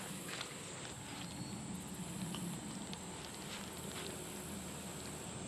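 Quiet outdoor ambience: a steady high-pitched drone with a few faint clicks and taps.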